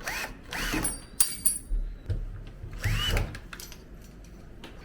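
Power drill-driver run in three short bursts, its motor whine rising and falling in pitch with each trigger pull, with a few sharp clicks between, while driving the screws of a door handle and lock set.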